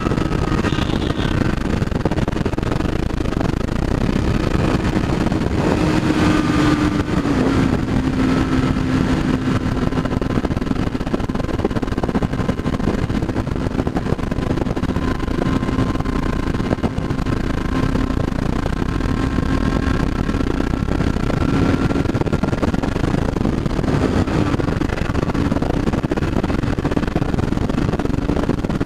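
Honda CB600F Hornet inline-four engine running steadily at highway cruising speed, with wind noise over it. The engine note dips slightly about seven seconds in and then holds steady.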